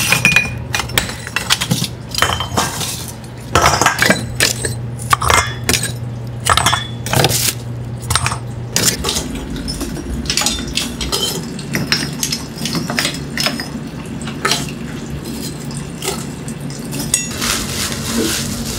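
Hard binchotan charcoal sticks clinking against each other and against metal tongs and a steel bowl: a run of many sharp, bright, glassy clinks, some close together, some spaced out.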